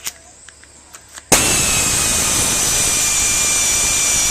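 Air-powered wrench starting suddenly about a second in and running steadily with a high whine that sags slightly in pitch, spinning down a cylinder-head nut.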